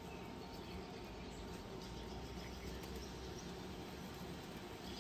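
Faint, steady background ambience: a low hum and hiss with no distinct events. The seasoning shaker is not heard as separate shakes.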